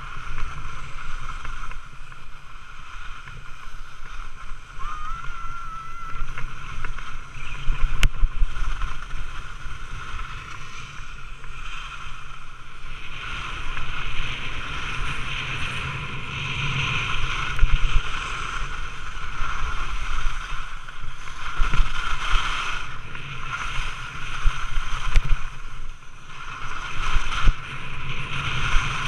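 Wind rushing over a camera microphone on a fast ski run, with skis scraping over the packed snow; the rush grows stronger about halfway through as the speed picks up.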